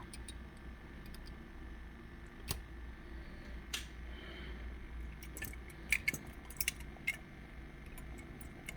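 Scattered light clicks and taps of a small 1/64 scale die-cast model truck being handled and turned over in the hands, a few clustered together past the middle, over a steady low hum.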